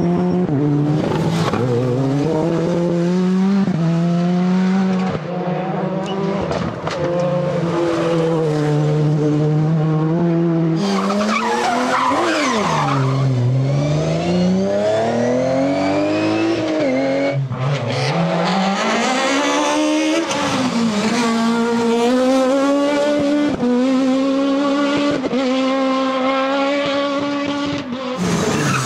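Rally cars driven hard on a special stage, one after another. The engines climb in pitch through the gears with quick upshifts, then drop sharply as the cars brake and go past.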